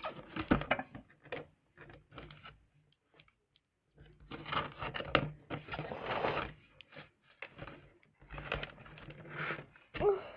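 Toy packaging of cardboard and plastic being handled and pulled apart: irregular crinkling, scraping and small clicks, with a brief pause about three seconds in.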